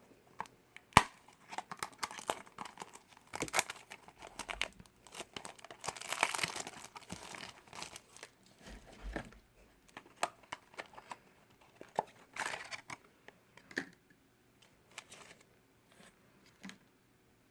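Hands opening a small cardboard Shopkins blind box and handling the wrapping inside: tearing and crinkling in short bursts with sharp clicks. There is a longer tearing stretch about six seconds in, and the sounds grow sparser and quieter toward the end.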